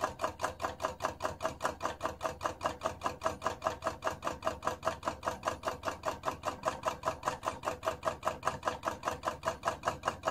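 Homemade Stirling engine running at about 300 RPM, making an even mechanical clicking about five times a second, one click for each turn of the flywheel.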